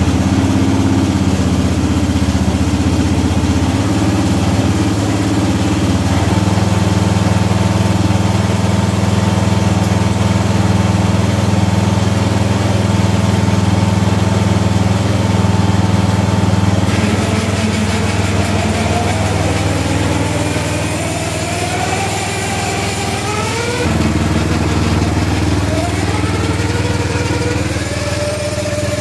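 Small single-engine riding-mower engine on a six-wheel, four-wheel-drive garden tractor built from two MTD riders, running steadily on a test drive. The sound shifts abruptly about 17 and 24 seconds in, and faint rising whines come through near the end.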